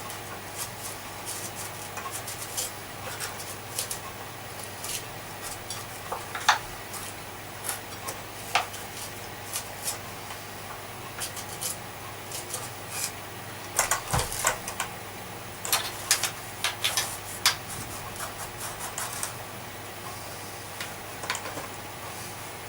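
Hand-cleaning a Hoover Junior vacuum cleaner's casing with a damp cloth: scattered clicks, knocks and short rubbing strokes as the parts are scrubbed and handled, busiest past the middle, over a steady low hum.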